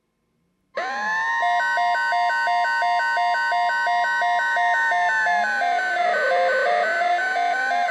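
NOAA Weather Radio alert: the steady 1050 Hz warning alarm tone starts suddenly under a second in. Over it, a weather radio's alert beeps pulse about four times a second, with slowly gliding tones where the two radios' sound overlaps.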